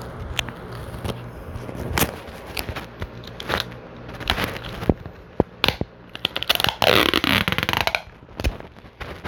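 Clear plastic wrapping around a bottle being handled, crinkling and rustling in short bursts with scattered clicks, and a longer, louder stretch of crinkling about six and a half seconds in.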